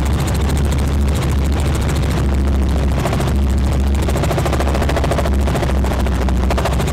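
Light helicopter in steady cruising flight, heard from inside the cabin: a constant low engine and rotor drone with a fast, even rotor chop.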